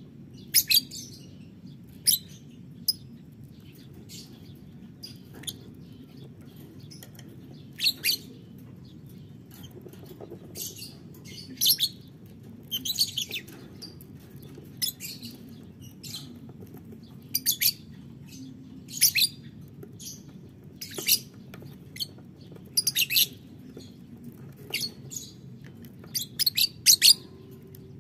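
Lovebirds (Fischer's lovebird, biola green colour) giving short, shrill, high-pitched chirps every second or two, some in quick clusters, over a steady low background hum.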